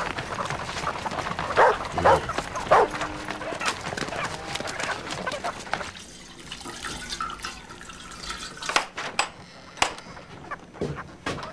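A dog barking a few times over a busy background of clatter. About six seconds in, the sound drops to a quieter stretch with scattered sharp knocks and clicks.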